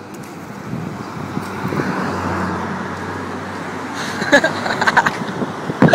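A car driving past on the road, its tyre and engine noise swelling over about two seconds and then easing off, with a few sharp clicks near the end.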